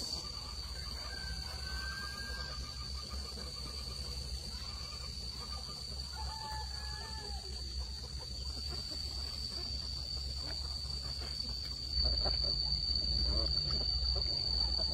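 Rural outdoor ambience: a steady high-pitched whine runs throughout, with a few faint bird calls in the first half. A low rumble on the microphone grows louder about twelve seconds in.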